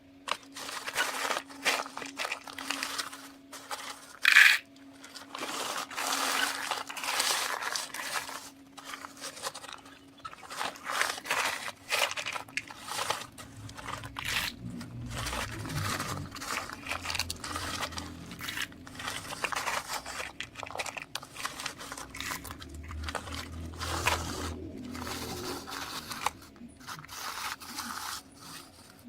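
Loose shelled corn crunching and rustling in irregular surges as it is moved in bulk, over a steady engine hum that turns to a low rumble about halfway through.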